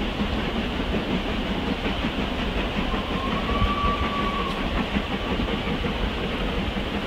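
Two narrow-gauge 2-6-2T steam locomotives, LYD and RUSSELL, double-heading a heavy train up a steep gradient. Their working exhaust is heard from a distance as a steady, dense rumble.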